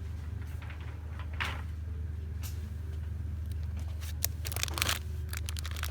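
A steady low hum with scattered light clicks and rustles on top, which grow busier about four seconds in.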